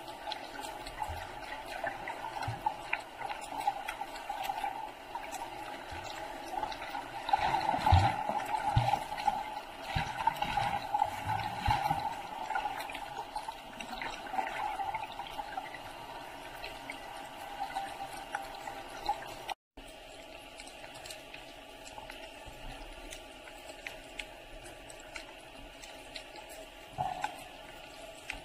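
Underwater sound picked up by a camera beneath the sea: a steady, muffled rushing noise with scattered faint crackles and low thumps, louder for a few seconds about a quarter of the way in. It cuts out for a split second about two-thirds of the way through.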